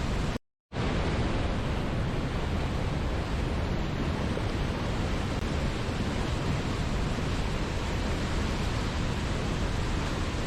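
Steady rushing of a waterfall, an even hiss strongest in the low end, broken once about half a second in by a sudden, very brief gap of silence.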